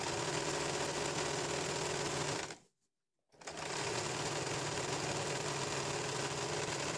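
Electric domestic sewing machine running at a steady speed, stitching a seam. It stops about two and a half seconds in, then starts again and runs on.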